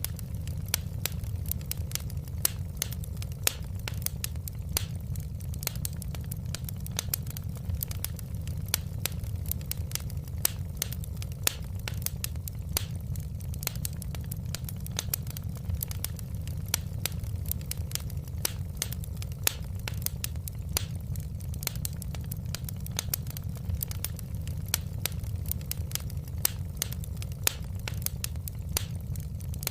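Fireplace fire crackling: many irregular sharp pops and snaps over a steady low rumble.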